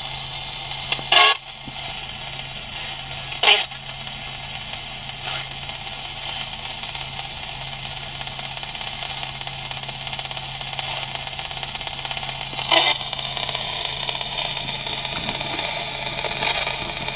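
A 'Radio Shack Hack' ghost box, a portable radio modified to sweep through stations, giving steady static hiss over a low hum. Short loud snatches of station audio break through three times: about a second in, about three and a half seconds in, and about thirteen seconds in.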